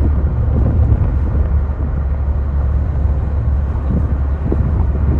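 Steady low rumble of a vehicle in motion: engine and road noise that holds even throughout.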